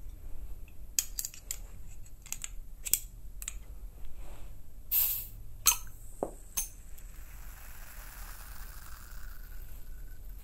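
A string of sharp clicks and small clatters, one a short hiss about five seconds in, followed by a soft steady hiss lasting a few seconds, recorded binaurally for a 3-D sound effect.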